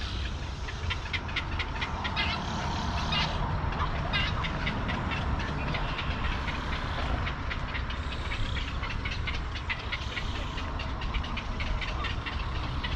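Egret and heron nesting colony calling from the trees: many short, harsh calls and clicks repeating in a continuous chatter, over a low steady rumble.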